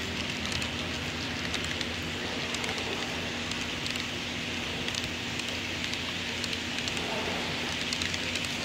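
HO scale double-stack intermodal cars rolling past on model track: a steady crackling rattle of small wheels on rail, with scattered faint clicks and a faint steady hum underneath.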